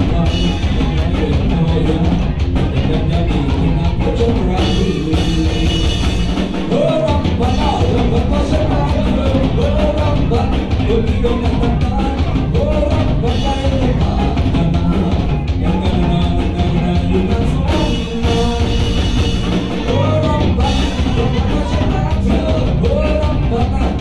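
Live rock band playing a song: electric guitars, electric bass and a drum kit, with a sung vocal over them.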